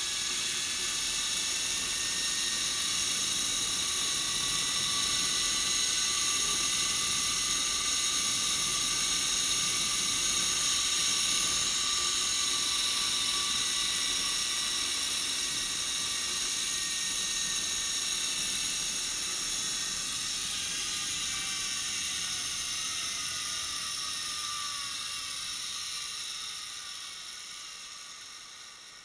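Zipline trolley pulleys running along the steel cable at speed: a steady high whine of several tones. Near the end the pitch drops and the sound fades as the trolley slows toward the landing.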